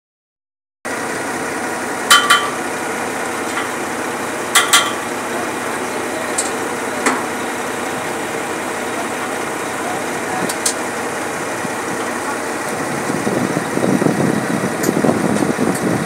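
Zoomlion truck-mounted concrete pump running with a steady engine drone, broken by sharp metallic clanks about two and a half seconds apart, typical of the pump's valve switching between strokes. The sound gets rougher in the last few seconds.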